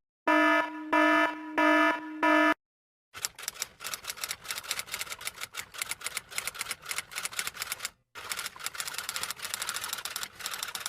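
Four short electronic beeps at one steady pitch, then after a brief pause fast, continuous typing: a dense clatter of key strikes, broken once by a short gap.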